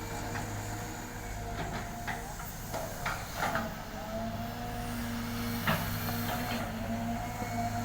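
Caterpillar excavator running steadily at work, its engine holding an even pitch with a steady whine over it, and a few short knocks and clanks scattered through.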